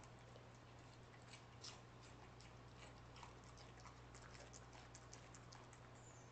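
Cardigan Welsh corgi chewing broccoli: faint, irregular crunchy clicks.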